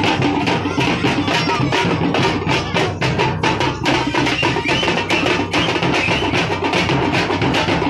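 A thappattam troupe's parai frame drums, beaten with sticks in a fast, steady rhythm of dense, repeated strikes.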